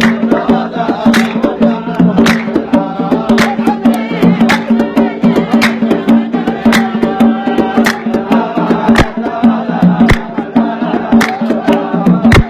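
Dan folk song music: steady low sustained tones with a singing voice over them, and sharp percussion strikes about once a second with lighter taps in between.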